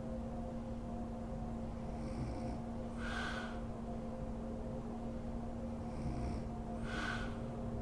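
A woman snoring in her sleep: a short, breathy snore about every four seconds, twice here, with fainter breaths in between, over a steady low hum.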